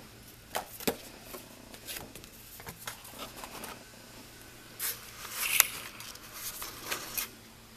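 Small handling noises: scattered light clicks and rustles, then a louder rustling scrape about five seconds in as the camera is picked up and moved.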